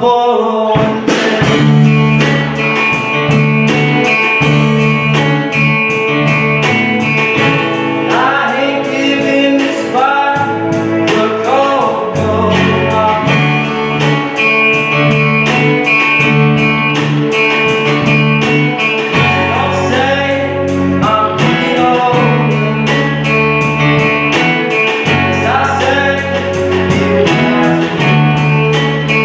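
A song: a singing voice over a band, with a bass line and a steady drum beat.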